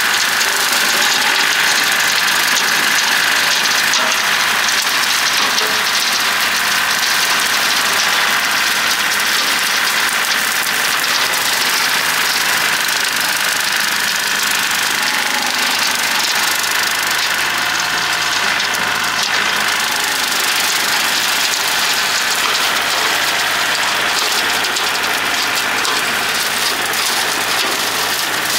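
John Deere 790 compact tractor's three-cylinder diesel engine running steadily.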